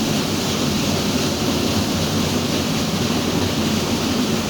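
Steady rush of water at a mill, loud and unbroken, with a low hum underneath from the turbine running below.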